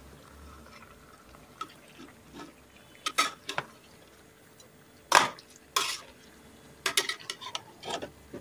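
Perforated metal spatula scraping and knocking against a pressure cooker pot while stirring chicken pieces into onions and tomatoes. A few short, sharp scrapes come in bursts, the loudest about five seconds in.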